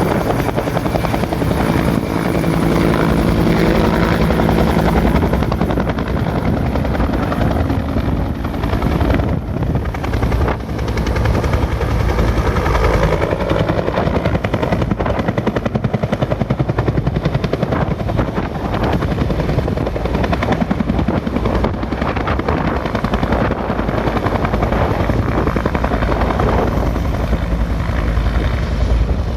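Rescue helicopter running loudly and steadily, its rotor beating rapidly over the whine of the engine.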